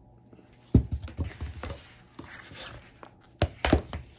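A picture book being shaken in the hands: irregular thumps and rustles of the cover and pages, one flurry about a second in and a sharper pair of knocks near the end.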